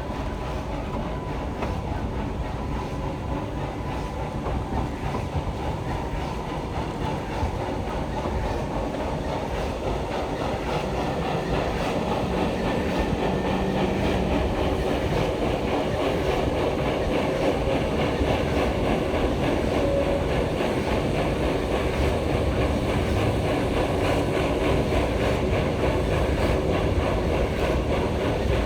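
Black Hills Central Railroad passenger train rolling along the track: a continuous rumble of wheels on rail with some clickety-clack. It grows a little louder over the first dozen seconds, then holds steady.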